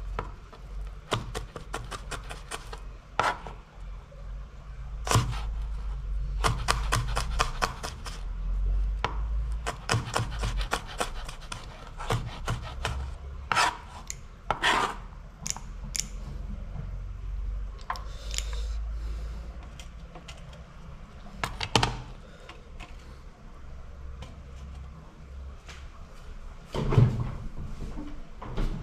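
Cleaver chopping onion, garlic and green chillies on a plastic cutting board: quick runs of knife strikes with short pauses between, and a louder knock near the end.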